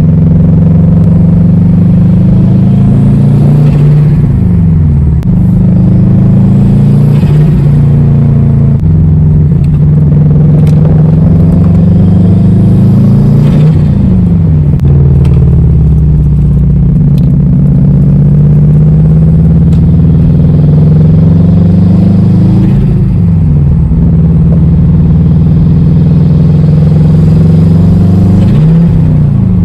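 Subaru WRX's turbocharged flat-four engine pulling under light boost, its pitch rising steadily and then falling sharply several times as the throttle is lifted for shifts. At the lifts the newly fitted blow-off valve releases, giving the turbo flutter, which is not very loud at only 6–7 psi of boost.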